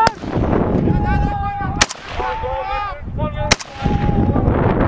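Single gunshots, three of them roughly a second and three-quarters apart, each a sharp crack that trails off across the hills. Long drawn-out shouts are heard between the shots.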